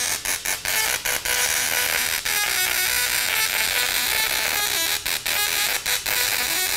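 Small solid-state Tesla coil's spark discharge buzzing and crackling steadily, cut by many short breaks, as the arc reaches toward a hand held over it.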